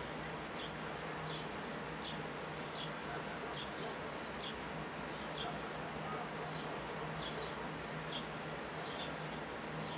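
Sparrows chirping: short, high, falling chirps, about two a second, coming more often from about two seconds in, over a steady low hum.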